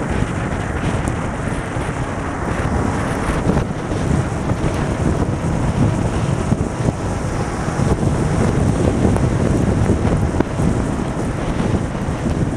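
Steady wind buffeting the microphone of a Honda CBR600RR sportbike ridden at motorway speed in heavy rain, with the motorcycle running underneath it.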